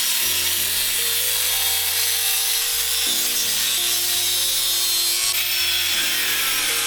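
Corded power tool running continuously, cutting into car body metal, with background music carrying a stepping bass line underneath.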